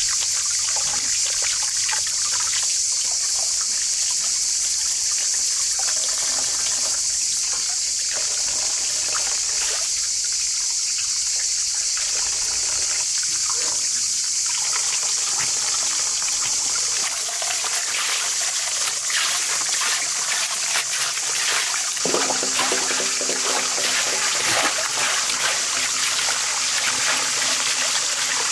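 Tap water running steadily into a water-filled metal basin, with splashing as cucumbers and leafy herbs are rinsed by hand under the stream.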